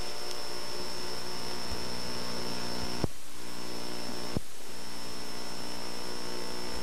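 Steady tape hiss and electrical hum from a VHS recording's playback, with two brief clicks about three and four and a half seconds in.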